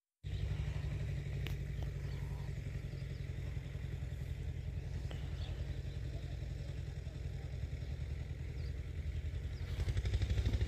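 A steady deep rumble that flutters rapidly and grows louder near the end, with a few faint clicks over it.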